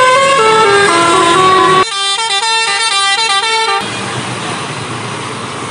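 A tour bus's multi-tone basuri telolet horn plays a stepped melody. After an abrupt break about two seconds in, it plays a second tune of quick repeated notes. The horn stops about four seconds in, leaving a steady rush of noise.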